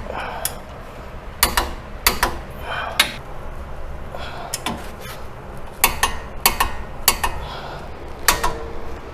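Torque wrench on the wheel bearing retaining bolts, ratcheting in short strokes with sharp metallic clicks, as the bolts are tightened to 120 foot-pounds.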